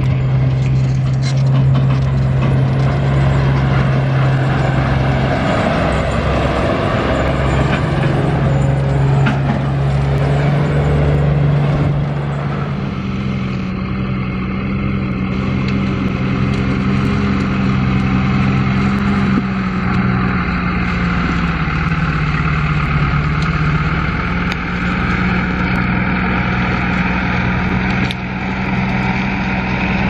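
Diesel engines running steadily: first a Claas Dominator 208 combine harvester driving along a road, then, after a cut about 12 seconds in, a Valtra tractor pulling a grain trailer across a field.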